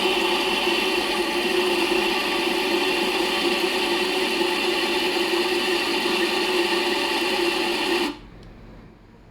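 Small electric kitchen appliance motor running steadily at a constant speed, then switched off suddenly about eight seconds in.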